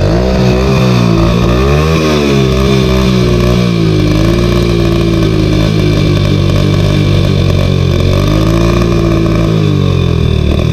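Hero Honda Splendor's single-cylinder four-stroke engine running loud through an aftermarket M4 exhaust with no dB killer. It idles with the throttle blipped: the pitch rises and falls about a second in and again around three seconds, holds steady, then rises once more near the end before settling back.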